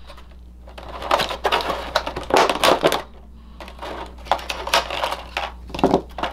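Stiff plastic packaging trays and small plastic accessories being handled, a run of quick clicks, crackles and clatters with a short pause about three seconds in.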